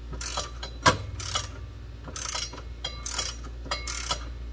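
Hand ratchet wrench clicking in short bursts, about two strokes a second, loosening a nut; one sharp knock about a second in.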